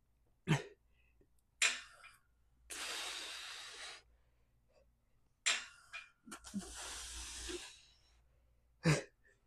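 A man breathing hard while straining through cable pulldown reps. There are short, sharp breaths out and two long hissing breaths, each about a second and a half.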